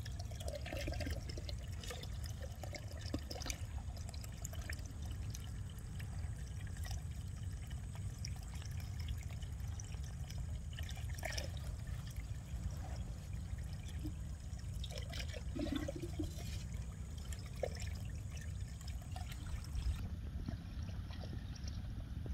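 Water pouring and trickling steadily through a narrow drain cut in an earth dam, with scattered faint clicks.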